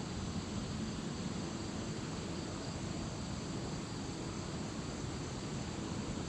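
Steady wind noise on the microphone, with a faint, even insect drone in the background.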